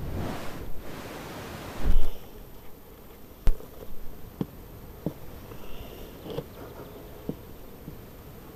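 Wooden beehive parts being handled as a honey super is set on and its cover lowered: a rustle ending in a wooden thump about two seconds in, then a sharp knock and several lighter wooden knocks.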